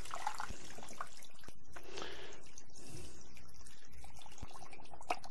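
Curing brine poured slowly from a plastic bucket into a tray of pork loin, trickling and splashing onto the liquid already covering the meat.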